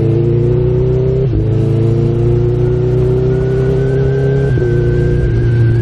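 Honda CB1000R's inline-four engine accelerating hard through the gears, its pitch rising steadily and dropping sharply at two quick clutchless quickshifter upshifts, about a second in and again about a second before the end.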